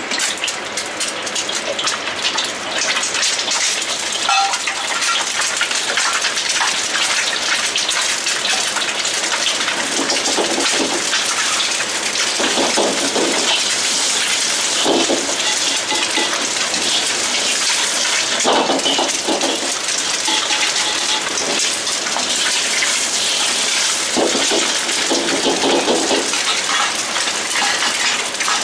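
A batch of eggs frying in hot oil in a wok: a steady, loud sizzle with dense crackling.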